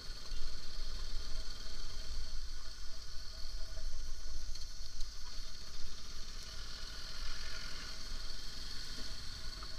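Motorcycle engine running steadily as the bike rides slowly over a rough unpaved road, with an uneven low wind rumble on the microphone.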